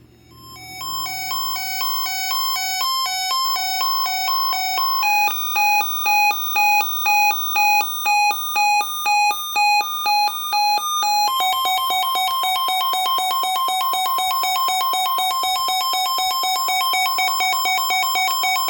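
Siren test on a CL-100 alert radio, loud. It starts as a hi-lo warble that swells up over the first few seconds, switches at about five seconds to a higher two-tone pattern pulsing about twice a second, and from about eleven seconds holds a steady two-tone alarm.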